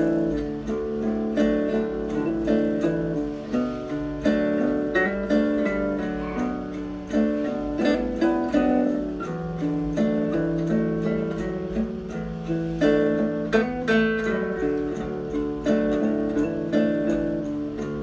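Background music led by plucked and strummed acoustic guitar, with a steady rhythm.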